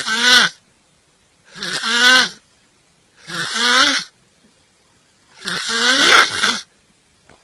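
A person snoring loudly: four raspy snores, each under a second, coming about every two seconds, each with a tone that bends upward.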